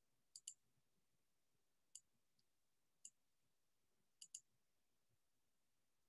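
Faint computer mouse clicks over near silence: a double click, then two single clicks about a second apart, then another double click.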